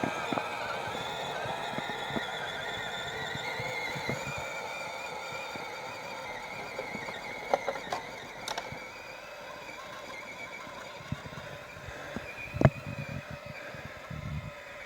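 Electric drive motor and gearbox of an RC scale 6x6 truck whining steadily as it drives, the whine wavering in pitch and slowly fading. Scattered clicks and knocks sound throughout, the loudest a sharp knock near the end.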